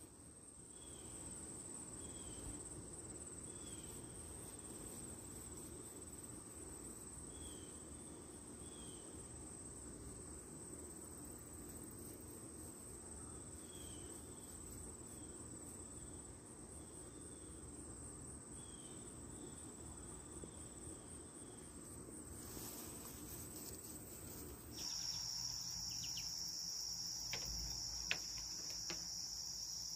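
Insects trilling steadily in a faint high chorus, with soft short chirps every second or so. About 25 seconds in, a louder, slightly lower insect trill takes over, with a few light clicks near the end.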